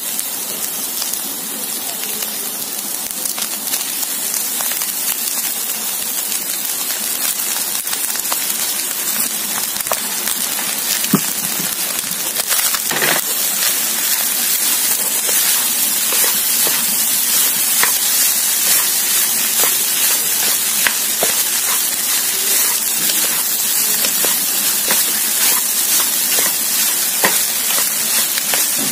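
Chicken, vegetables and cooked white rice frying in a hot wok, a steady sizzle while the rice is turned over with a wooden spatula, with scattered light taps and scrapes of the spatula against the pan. The sizzle grows a little louder over time.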